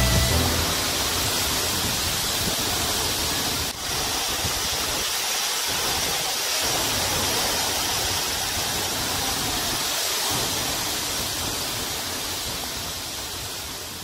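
Steady rushing of a waterfall, with a brief dropout about four seconds in, fading out near the end.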